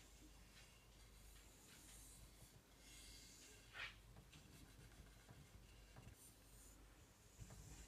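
Near silence with faint rubbing and scratching handling noise, and one slightly louder scrape about four seconds in.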